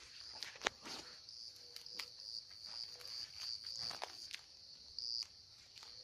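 Steady high-pitched chorus of insects, with irregular footsteps and snaps of brush underfoot; one sharp click stands out about half a second in.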